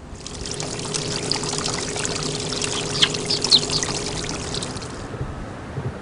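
Water pouring and splashing steadily, cutting in abruptly and fading out about five seconds in, with a faint steady hum beneath it.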